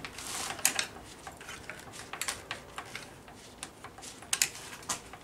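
Throttle twist grip and linkage of a Veterok 8 outboard motor being worked back and forth, with irregular small metallic clicks and rattles and a brief hiss near the start. The linkage is stiff, seized with age, and is being freed up with lubricant.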